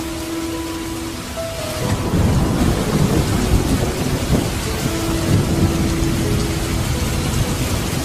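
Rain falling steadily. About two seconds in, a deep rumble swells in beneath it and goes on, rising and falling.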